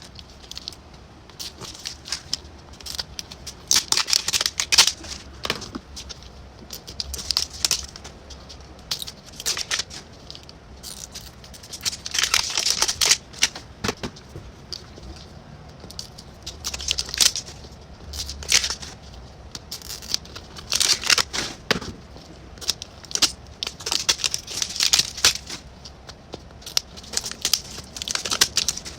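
Small plastic wrappers of Mini Brands blind-ball toys crinkling and tearing, mixed with clicks of small plastic pieces being handled, in repeated bursts of a second or two with short pauses between them.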